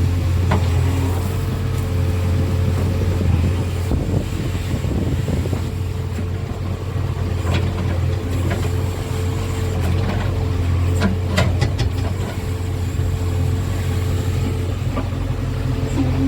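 JCB backhoe loader's diesel engine running steadily while it works, with a few sharp clanks near the start, about halfway and twice later on.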